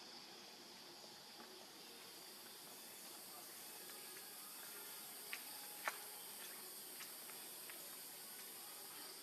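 Faint, steady outdoor ambience: a constant high insect drone over a soft hiss, with two small sharp clicks a little past halfway.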